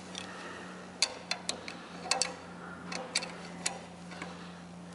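Hand tools clicking against metal as bolts on a motorcycle engine cover are worked loose: about eight sharp, irregular metallic clicks, bunched between one and four seconds in.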